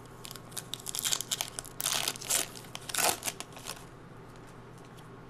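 Wrapper of a trading card pack being torn open and crinkled by hand: a quick run of crackling and tearing, loudest near the middle, that stops about four seconds in.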